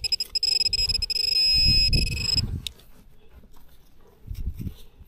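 Metal detecting pinpointer sounding a steady high-pitched alert tone as it is probed through loose dirt in the hole, signalling metal close by. The tone runs over the scrape and crunch of soil and cuts off about two and a half seconds in. Scattered scrapes of dirt follow.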